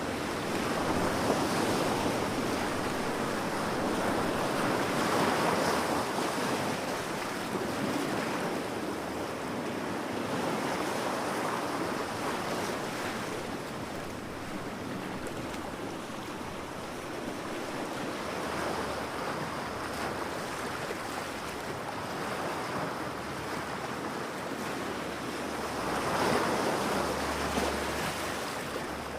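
Ocean surf on a beach: waves breaking and washing in, the rush of water swelling and easing every few seconds, with a louder surge near the end.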